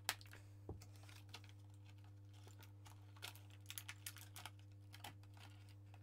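Scissors snipping through clear plastic packaging, with the plastic crinkling: faint, scattered clicks and crackles, a few sharper snips near the start and in the second half.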